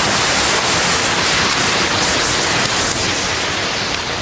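A large mass of matchsticks burning together with a loud, steady hiss of fizzing match heads and flame, easing off slightly near the end.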